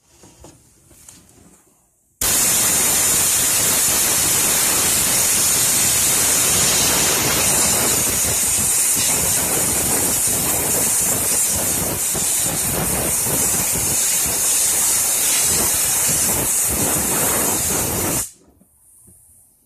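Compressed air blowing onto a distributor to dry and clean it after brake cleaner: one long, loud, steady hiss that starts abruptly about two seconds in and cuts off suddenly near the end.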